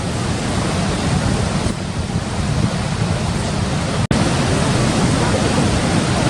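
Steady roar of Victoria Falls' water pouring over the edge, mixed with wind on the microphone. It cuts out for an instant about four seconds in, then carries on.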